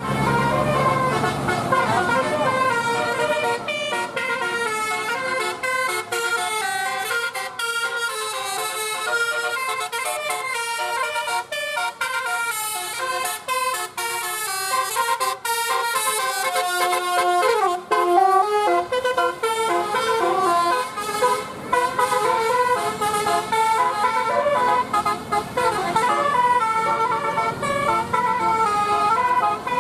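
Basuri telolet multi-tone bus horn playing a tune, with a continuous run of notes stepping up and down in pitch.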